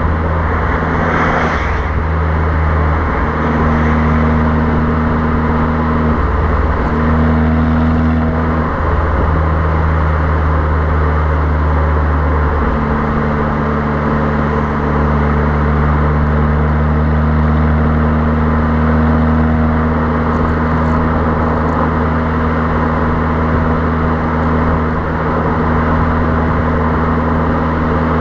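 Fiat Abarth 595's turbocharged 1.4-litre four-cylinder exhaust note at a steady motorway cruise, its pitch shifting only slightly with small throttle changes. The microphone sits by the rear number plate, so wind noise runs under it, with a brief rush of noise about a second and a half in.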